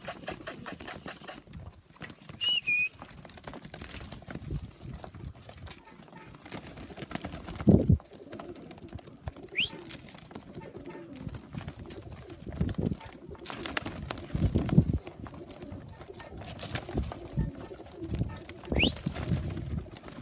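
Domestic pigeons cooing at a loft, with several dull thumps and a few short high chirps.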